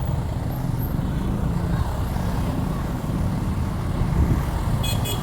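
Steady low rumble of a heavy road vehicle's engine and traffic. A quick run of high-pitched beeps starts just before the end.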